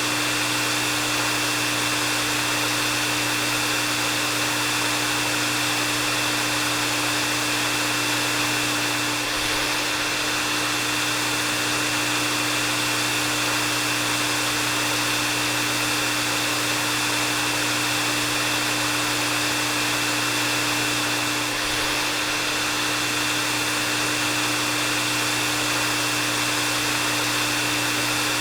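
Hair dryer running steadily: a constant rush of blown air with a steady motor hum and a thin high whine.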